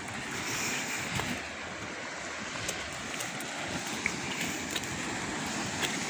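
Calm sea washing gently on a rocky limestone shore, with light wind on the microphone and a few faint clicks and crunches of footsteps on loose rock and dry leaves.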